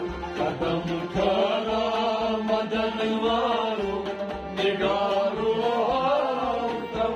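Kashmiri devotional kalam being sung: a voice carries two long, rising and falling melodic phrases over a steady held instrumental drone and a low, regular beat.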